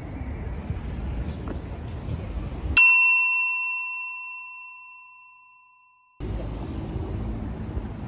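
A single bell chime, struck once about three seconds in and ringing away over about three seconds, the sound effect of a subscribe-button animation; all other sound drops out around it. Before and after it, steady street background noise.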